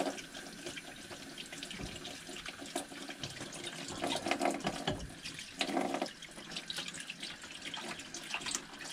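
Galley sink tap running while a plastic rudder-bearing ball is rinsed under it by hand, water splashing over the part with small knocks and rubs as it is turned, a little louder about four to six seconds in.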